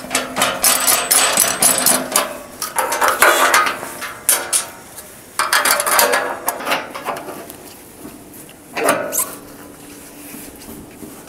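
Steel bolts and nuts clinking, knocking and scraping against a galvanised steel fascia bridging bracket and purlin as they are pushed through and done up by gloved hand. The sounds come irregularly, with some metallic ringing.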